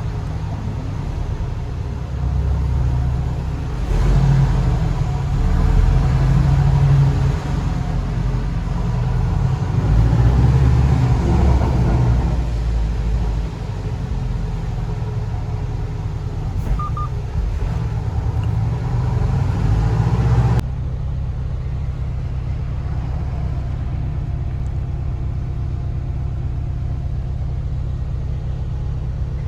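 Low, steady rumble of a car on the move. About two-thirds of the way through it changes abruptly to a smoother, more even rumble.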